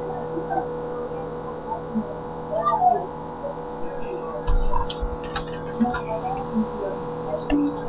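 Steady electrical hum picked up by a webcam microphone, with a few low thumps and clicks from the webcam being handled from about halfway through.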